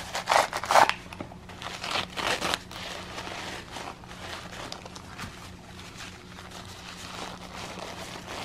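Packing paper crinkling and tearing as it is pulled from a cardboard tube and unwrapped by hand, loudest in the first second and again about two seconds in, then softer rustling.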